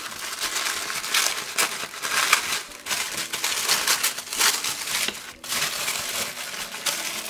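Thin wrapping paper crinkling and rustling in irregular bursts as hands peel open a sealed package and unfold the wrap.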